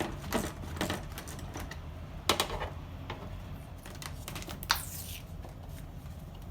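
Irregular clicks and knocks of hand tools and metal parts as the window motor's mounting bolts in a car door are worked loose, with a few sharper knocks among them.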